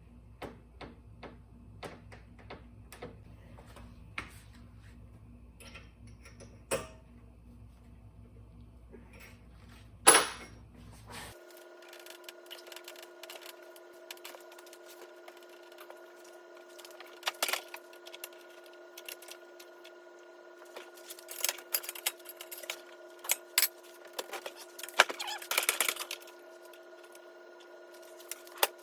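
Scattered metal clanks and knocks from a bent steel gate being worked back into shape, with one loud bang about ten seconds in and a run of sharper strikes near the end. A faint steady hum comes in about eleven seconds in.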